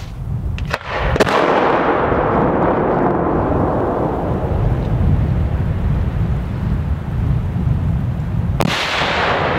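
Fireworks display going off in a heavy barrage: sharp bangs about a second in and again near the end, with the shells' bursts running together into a continuous loud rumble and crackle in between.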